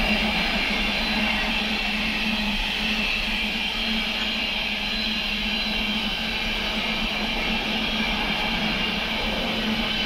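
Intermodal container freight train's wagons rolling past on the rails, a steady running noise of wheels on track with a low steady drone underneath.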